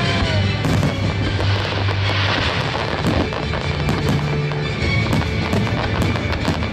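Fireworks display: aerial shells bursting with many rapid sharp cracks, over music with a steady bass line.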